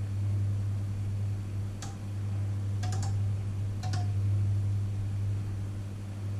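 Panasonic inverter microwave oven running with a steady low hum. Three short clicks come about a second apart midway through.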